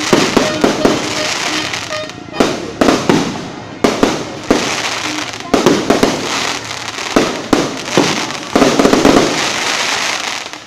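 Fireworks and firecrackers going off: a long, irregular volley of sharp, loud bangs with crackling between them, several bursts coming in quick clusters.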